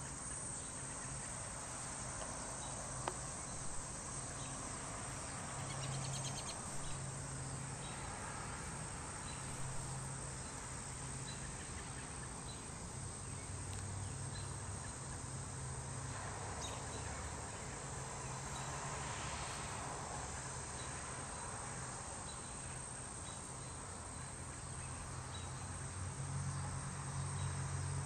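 A steady late-summer insect chorus, a high continuous trill with faint regular ticks, over a low steady hum that swells near the end.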